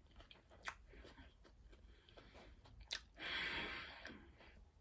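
A person chewing food close to the microphone, with small wet clicks and smacks. A sharper click comes about three seconds in, followed by a louder, noisier stretch of chewing lasting about a second.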